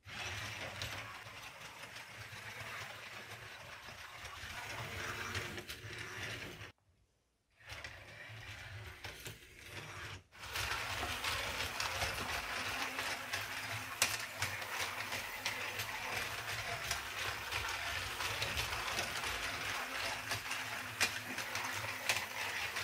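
LEGO WeDo 2.0 train's electric motor and plastic gear train whirring steadily as it drives the locomotive around plastic track, with the wheels rattling and a few sharp clicks. The sound cuts out briefly about 7 s in, comes back quieter, and grows louder again about 10 s in.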